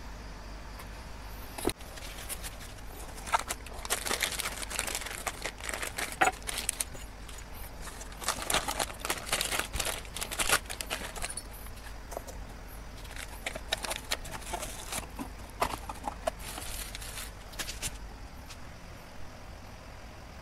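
Plastic bags and bubble wrap crinkling in irregular bursts as gloved hands unwrap pistons, over a faint steady low hum.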